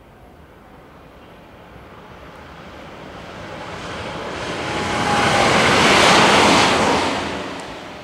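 A JR West 521 series two-car electric multiple unit passes at speed. The running noise of its wheels on the rails builds over several seconds, peaks about six seconds in, then falls away quickly as the train goes by.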